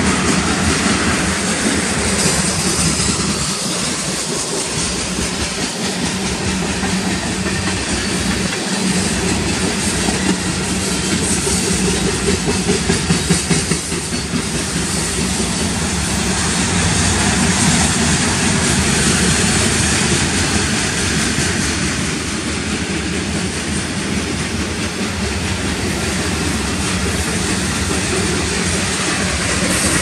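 Cars of a manifest freight train rolling past close by: steel wheels running on the rails, a steady loud rolling noise that swells a little about halfway through.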